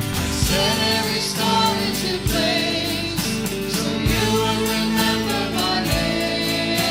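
A choir singing a Christian song with instrumental accompaniment, guitar among it.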